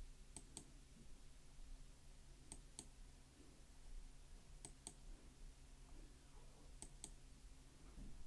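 Faint computer clicks: four quick double clicks about two seconds apart, over a low steady hum.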